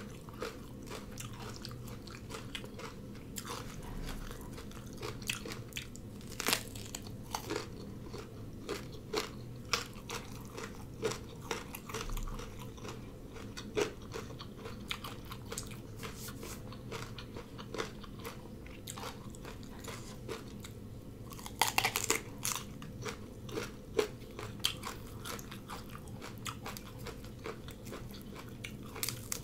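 A person chewing and crunching food close to the microphone, with many small clicks and a dense run of crunches about 22 seconds in, over a steady low hum.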